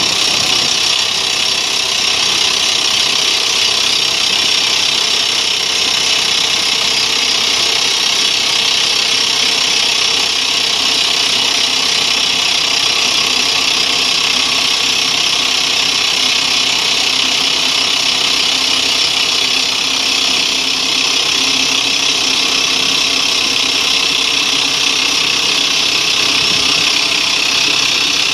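BPI 112 quarry drill rig boring a blast hole into rock: a steady, loud drilling noise that runs without a break.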